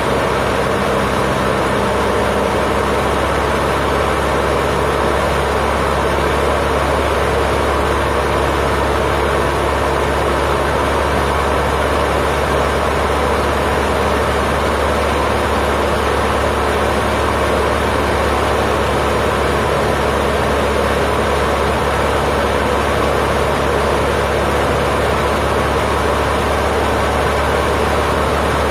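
Cessna 152's four-cylinder Lycoming engine and propeller running at a steady pace in flight, heard from inside the cabin as a constant drone.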